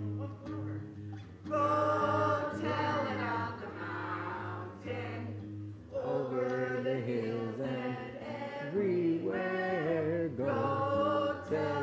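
A group of people singing a song together in phrases, with a steady low hum beneath.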